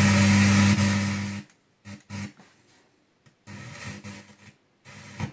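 Sansui G-9700 receiver's FM tuner being swept across the band. A loud burst of broadcast audio with hiss lasts about a second and a half, then brief snatches of other stations come and go, with the sound cutting out to silence between them.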